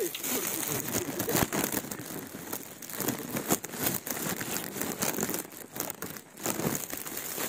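Close rustling and crackling noise on a handheld camera's microphone while walking, with a few sharper knocks.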